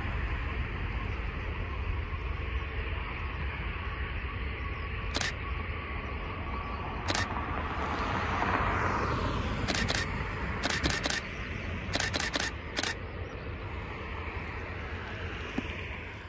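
Canon EOS 700D DSLR shutter firing about eleven times, first as single shots and then in quick groups of two or three, from about five seconds in to about thirteen seconds in. Beneath the clicks runs a steady low rumble and rush of outdoor noise.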